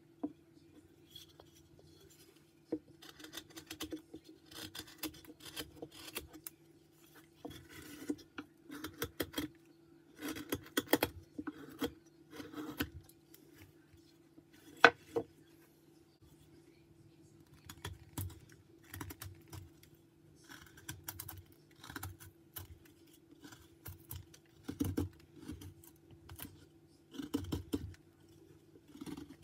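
Carving knife slicing and paring white pine in short, irregular strokes, with clusters of cuts separated by pauses and one sharp click about halfway through. A faint steady hum runs underneath.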